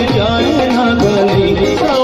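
Loud amplified Hindi devotional jagran bhajan for the Mother Goddess: a man sings a winding melody through a PA microphone over a band, with a steady hand-drum beat underneath.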